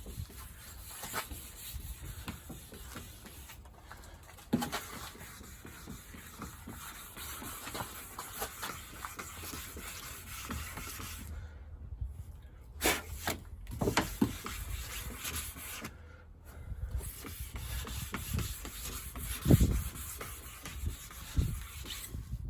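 Hand sanding of car body paint with fine-grit sandpaper: irregular scratchy rubbing strokes, pausing briefly twice, with a few knocks, the loudest about two-thirds of the way through.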